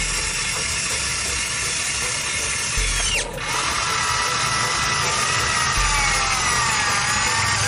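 RC model excavator's electric motors running with a steady high whine, the pitch sagging and rising as the arm and bucket work under load; the whine briefly drops out about three seconds in.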